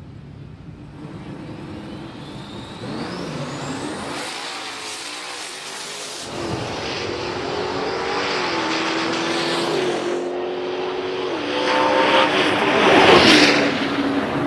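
Two drag-racing cars, a twin-turbo 392 Hemi Dodge Charger Scat Pack and a Hellcat Super Stock, accelerating hard down the strip. The engine pitch rises in steps, and the sound grows louder to a peak as they pass, about thirteen seconds in.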